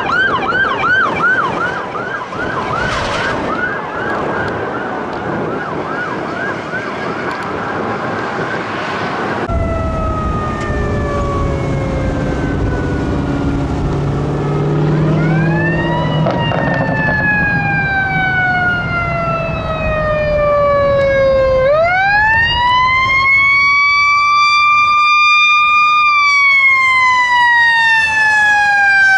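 A sheriff's Chevrolet Tahoe's siren on a fast yelp, rapid up-and-down sweeps. After a cut about ten seconds in, a fire engine approaches with what sounds like a mechanical siren winding up quickly and slowly winding down, twice, over the rumble of its engine.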